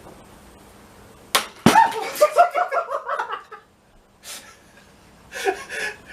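The spinning plastic bucket of a homemade bucket washing machine comes to grief: a sharp crack and then a heavy thump about a second and a half in. A burst of laughter follows.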